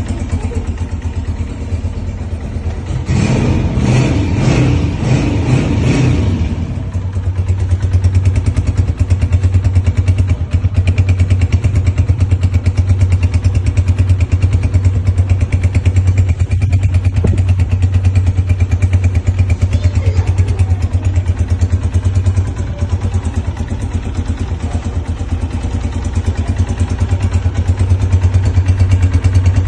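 Honda CG 125's single-cylinder four-stroke engine running, with a burst of throttle blips about three seconds in. It then runs on steadily, dropping a little in loudness for a few seconds about two-thirds of the way through.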